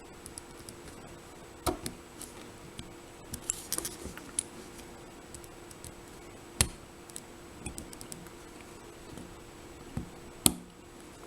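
Light metallic clicks and ticks of an American Lock 1105-series padlock and its key being handled, with the lock being locked up so the core's retaining clip can be worked off. A few sharper clicks stand out, the loudest about six and a half seconds in.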